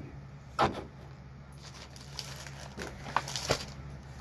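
Small store-bought decor items in their packaging being handled: a sharp knock about half a second in, then light crinkling and a few small clicks, over a steady low hum.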